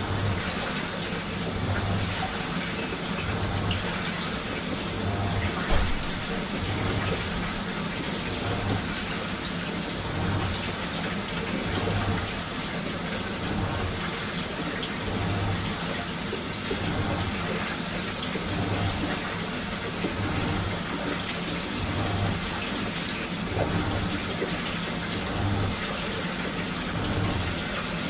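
Washing machine running a strong cycle: water sloshing in the turning drum with a steady hiss, and a low pulse about every second and a half to two seconds over a constant low hum. One brief knock about six seconds in.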